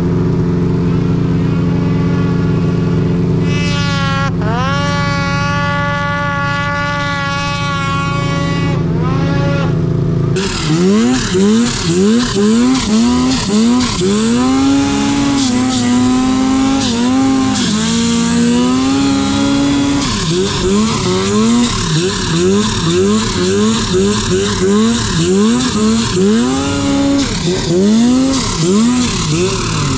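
Snowmobile engine running steadily at first, with one quick rev a few seconds in. From about ten seconds in, the engine is revved up and let off over and over, its pitch rising and falling repeatedly, as the throttle is worked while riding.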